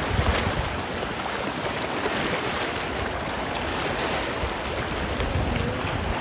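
Sea waves breaking and washing in a steady roar of surf, with wind rumbling on the phone's microphone.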